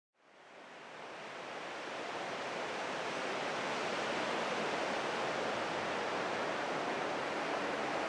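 Steady rushing wash of ocean surf, fading in over the first few seconds and then holding even.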